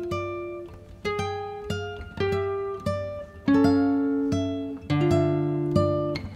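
Background music: a plucked acoustic guitar melody, one note or chord about every half second, each fading out.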